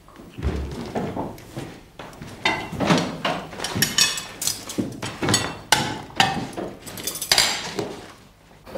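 Knives and forks clinking and scraping on china plates during a meal, a string of sharp, irregular clinks.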